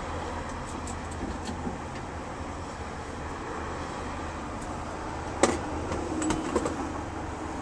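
Steady low hum of car engines running, with one sharp knock about five and a half seconds in and a few lighter clicks after it.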